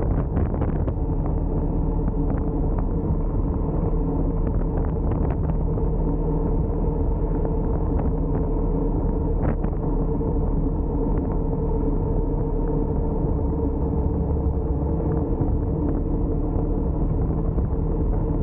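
Honda ADV350 scooter's single-cylinder engine running steadily at cruising speed, around 50 km/h, mixed with wind and road rumble. A few brief taps come about half a second in and again near the middle.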